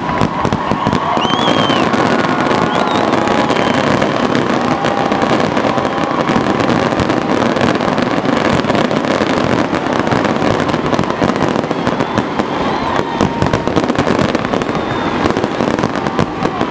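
Fireworks display at full barrage: a rapid, continuous run of aerial shell bursts and crackling stars, many sharp bangs a second with no break.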